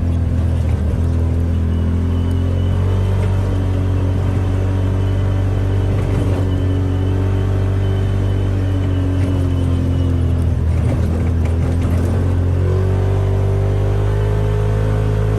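Off-road vehicle engine running steadily at low speed, its pitch rising and falling gently as the throttle changes.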